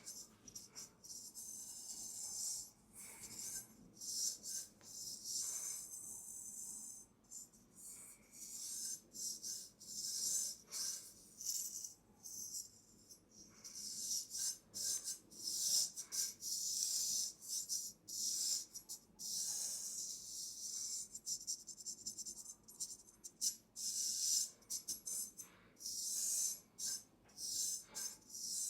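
Straight razor scraping across the skin in a traditional face shave: short, quick, crisp rasping strokes coming in rhythmic clusters with brief pauses.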